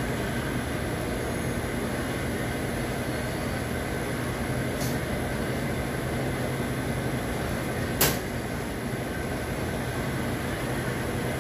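Steady drone of commercial kitchen ventilation with a low hum running under it. A sharp click sounds about eight seconds in, with a fainter one a few seconds earlier.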